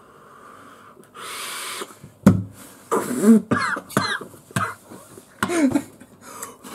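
A man coughing several times in short fits after a big hit of ice-cold, koolada-cooled vape vapour, with a breathy rush of breath before the coughing starts and laughter mixed in.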